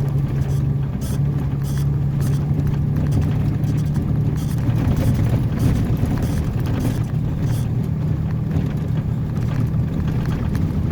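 Flatbed truck's engine running steadily under load at a held, even pitch as it pulls through soft sand with both differentials locked, throttle kept steady so as not to bog down.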